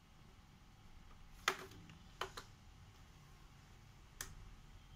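Plastic snap clips of an Acer Aspire 3 laptop's bottom cover clicking loose as the cover is pried off the keyboard deck: a few short sharp clicks, the loudest about one and a half seconds in.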